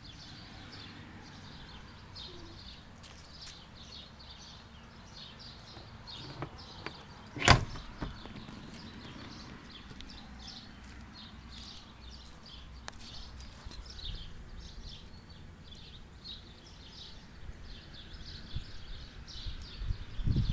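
Background ambience with small birds chirping over and over, and one sharp knock about seven and a half seconds in.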